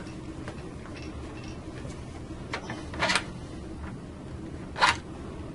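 Hands handling a circuit breaker's hardware: a few faint ticks, then two short, sharp clicks about three and five seconds in, over a low steady hum.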